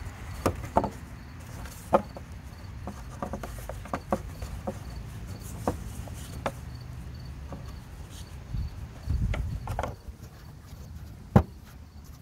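Plastic engine cover on a Chevy Captiva 2.4 L Ecotec being pressed and seated by hand: scattered plastic clicks and knocks, the sharpest near the end, with a brief low rubbing rumble about nine seconds in.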